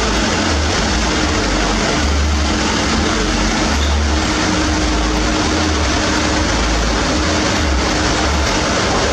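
Heavy truck engine running with an uneven low rumble and a faint steady tone, inside a loud, dense wash of noise.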